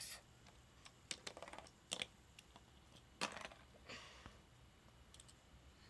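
A handful of light, sharp plastic clicks and taps of Lego pieces against a Lego baseplate, scattered irregularly, the most distinct about two seconds in and a little after three seconds.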